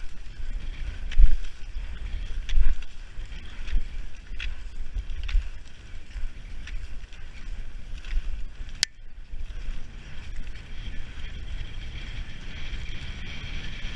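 Skate skis hissing and scraping over packed snow, with regular clicks of ski-pole plants about every second and a bit, and a low rumble of wind on the microphone. One sharp click stands out about nine seconds in.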